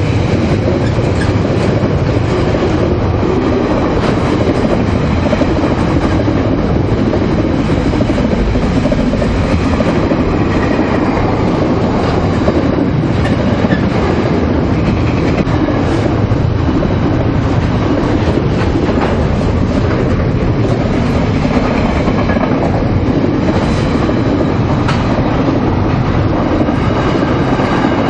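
Freight train wagons, box vans and container flat wagons, rolling past close by in a steady, loud rumble, with wheels clicking and clattering over the rail joints.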